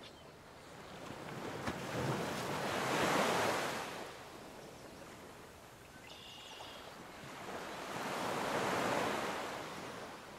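Background sea waves washing in twice, each swell rising and falling over about four seconds, with a brief faint high chirp a little past the middle.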